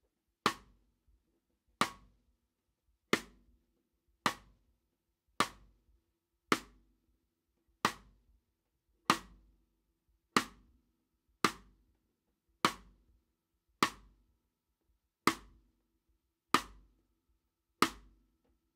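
Snare drum sidestick (rim click): single clicks played with a reversed drumstick laid across the snare's rim, about fifteen strokes evenly spaced a little over a second apart, each with a short ring from the drum. The player is trying out where on the stick the rim click sounds best.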